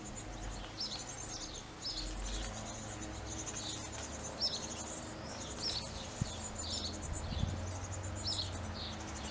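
Small songbirds chirping: short, falling chirps every half second to a second, over a faint, continuous high trill.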